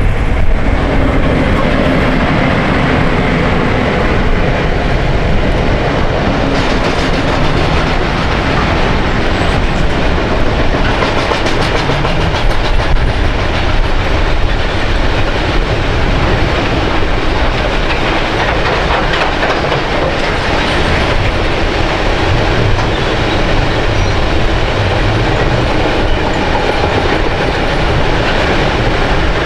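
A train running past close by, its wheels and cars making a steady loud rail noise throughout.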